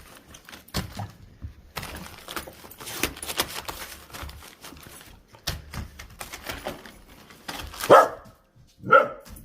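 A dog barks twice near the end, after a stretch of rustling and short clicks.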